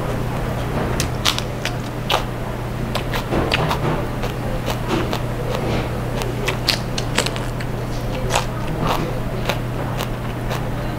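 A person chewing a mouthful of lettuce wrap with grilled pork belly close to the microphone: crisp crunches at irregular intervals, over a steady low hum.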